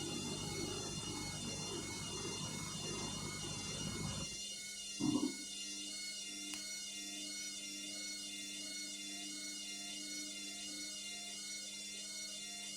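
Indesit washing machine's drum motor running, then stopping abruptly about four seconds in, leaving only a steady electrical hum, with a brief thud a second later. It is the pause the machine makes when it detects too many suds from an overdose of detergent.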